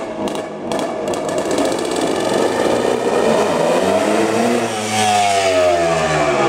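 1981 Kawasaki KX250's two-stroke single-cylinder engine revving as the motocross bike is ridden, its pitch rising and falling with the throttle, and loudest about five seconds in as the bike swings close.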